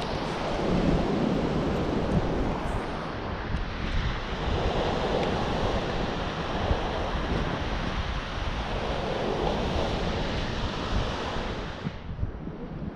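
Wind buffeting the microphone over the wash of surf, an even rushing noise that swells and eases every few seconds, dropping off about twelve seconds in.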